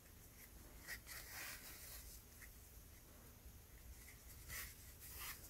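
Faint, brief scratchy rustles of yarn and a darning needle being drawn through crocheted stitches, a few times.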